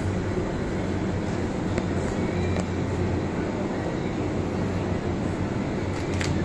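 Steady low hum of supermarket refrigerated display cases and ventilation, with a few faint clicks as a plastic food tray is handled into a plastic shopping basket.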